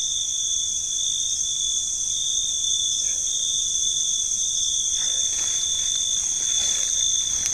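Night insect chorus: crickets trilling steadily in two high pitches.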